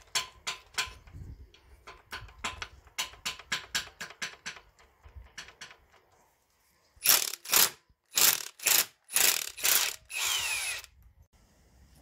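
Hand socket ratchet clicking in quick repeated strokes as it works the bolts on a drive shaft's flange at a BMW E39 rear differential. About seven seconds in, a cordless impact driver on the same bolt hammers in several short bursts and then one longer one.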